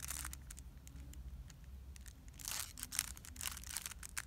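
A plastic Rubik's cube being turned quickly by hand, a fast run of clicking layer turns, in two bursts: a short one at the start and a longer one from about two and a half seconds in. This is a move sequence being run to turn a yellow 'L' into the yellow cross.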